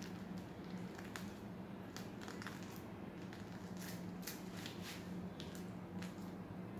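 Plastic piping bag crinkling and ticking irregularly as it is squeezed to pipe buttercream, over a steady low hum.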